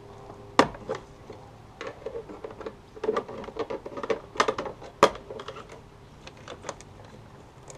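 Plastic clicks and snaps from the retaining tabs of a door mirror's glass backing plate being pried loose with a tool, with two sharp loud snaps, about half a second in and about five seconds in.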